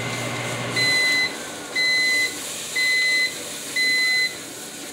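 Microwave oven ending its cycle: its low running hum stops about a second in, then four evenly spaced beeps, about one a second, signal that the heating time is done.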